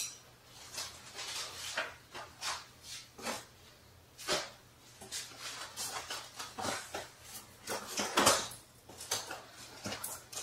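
Plastic wrap and foam packing rustling, crinkling and scraping as they are handled and pulled out of a cardboard box, in irregular short bursts throughout.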